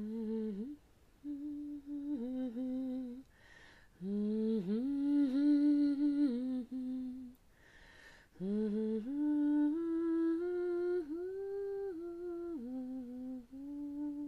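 A woman humming a slow melody in long held notes, in phrases with a breath between them.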